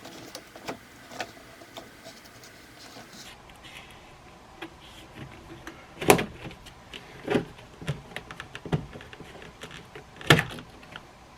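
Engine intake parts being handled: scattered clicks and knocks, with two louder knocks about six and ten seconds in.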